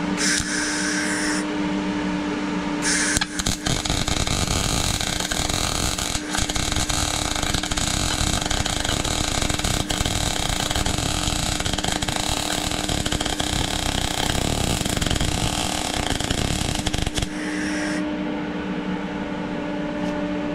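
MIG welding arc from a Parweld XTM 211Di inverter welder, crackling steadily as a bead is laid at raised amperage for deeper penetration. Two brief arc strikes come first, then a continuous run that stops about 17 seconds in. A steady hum sits underneath throughout.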